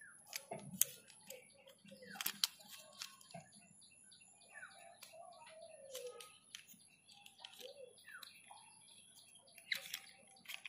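Hard plastic toy truck parts clicking and knocking together as a wheeled chassis is fitted into the body, in scattered sharp clicks with a few louder snaps.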